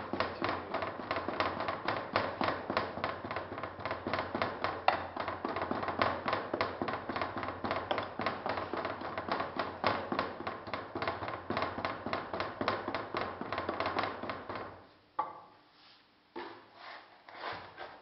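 Hand rammer tamping molding sand of quartz sand, clay and molasses into a metal molding flask: rapid regular knocks, about five a second. They stop about 15 seconds in, followed by a few softer scrapes and knocks.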